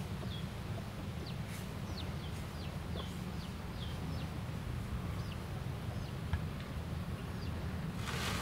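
A small bird chirping over and over in short falling notes, two or three a second, thinning out after about five seconds, over a steady low rumble. A brief rush of noise comes near the end.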